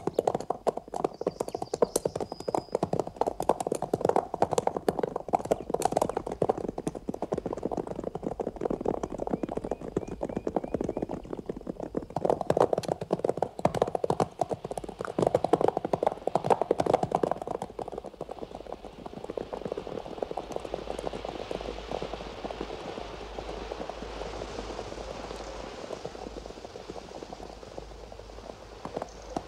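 Hoofbeats of several horses galloping over grassy ground, a rapid dense clatter. After the middle the beats give way to a softer, steadier rushing noise, and they pick up again near the end.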